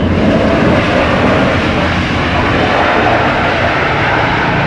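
Airbus A320neo's Pratt & Whitney geared turbofan engines on landing: a loud, steady rush of jet noise.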